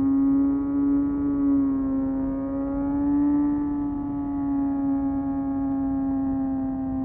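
Kawasaki ZX-6R's 636 cc inline-four engine held at a steady high rpm, its pitch wavering slightly up and down with small throttle changes.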